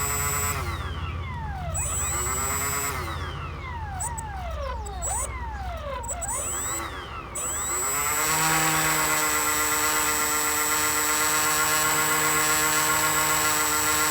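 RC jet's electric ducted fan motor on a test run, throttled up and down several times in quick rising and falling whines, then held at a steady high whine from about eight seconds in and spooling down near the end. It runs smoothly and sounds pretty good.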